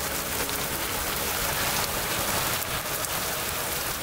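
Heavy, wind-driven rain pelting a car in a severe thunderstorm: a steady, dense rush of noise with a few brief louder spatters near the end.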